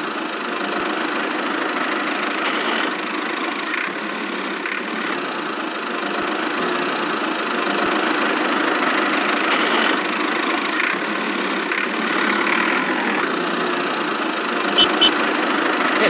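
Miniature DIY toy tractor running steadily, giving a continuous mechanical running noise. A couple of short ticks come near the end.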